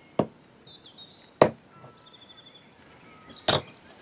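Machined metal flywheels being set down and stacked: a soft thud on the cutting mat, then two sharp metallic clinks about two seconds apart, each ringing on with a high tone as steel and aluminium flywheels land on top of a brass one.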